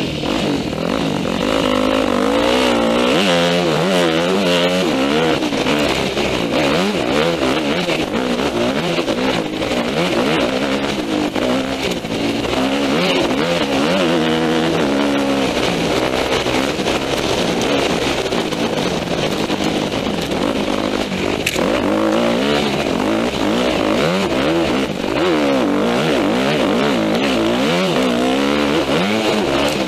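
Yamaha 250F dirt bike's four-stroke single-cylinder engine being ridden hard, its pitch rising and falling continuously as the throttle is worked and the gears change.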